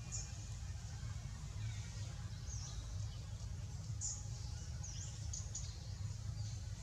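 Outdoor ambience: a steady low rumble with scattered short, high-pitched chirps and squeaks from small animals.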